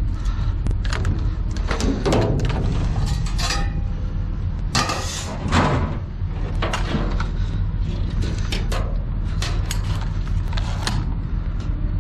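Pedestal fan parts (plastic base, grille and pole) being picked up and handled in a steel dumpster: irregular knocks and clatter, over a steady low rumble.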